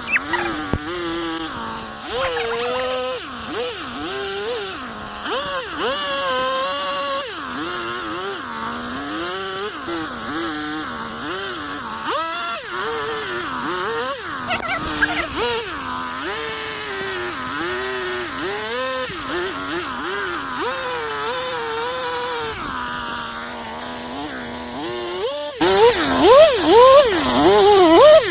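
Two-stroke chainsaw running and revving up and down over and over as it cuts wood. It gets louder near the end.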